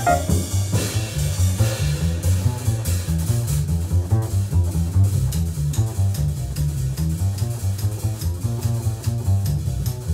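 Small-group jazz recording: an acoustic double bass, plucked, carries the line, with ride cymbal keeping time and light piano chords. A melodic line dies away right at the start.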